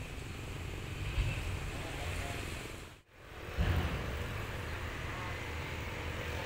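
Steady rumble and hiss of a railway yard with a distant diesel locomotive engine running. The sound drops out briefly about three seconds in at an edit, and comes back with a short low thump.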